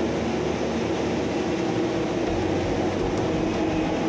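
Steady machinery drone with a constant mid-pitched hum: the background plant noise of an offshore oil and gas installation.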